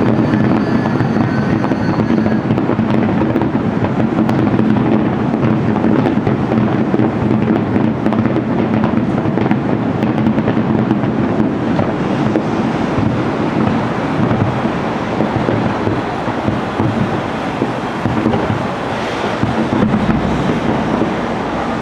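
Fireworks going off in a dense, continuous barrage of bangs and crackles, with a steady low hum underneath.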